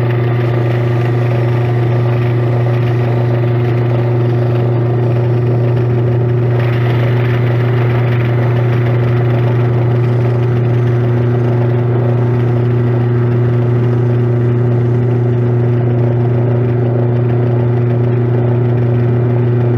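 Lathe running at a steady speed with a loud, even motor hum, while oil-dipped 600-grit sandpaper is held against a spinning antique sewing machine handwheel to polish it.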